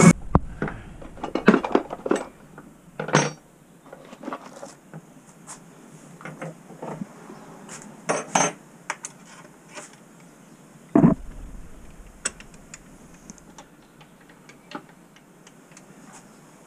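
Scattered metallic clinks, clicks and knocks of parts on a Kobalt benchtop router table being handled by hand as its fence and featherboard are set, with a dull thump about eleven seconds in.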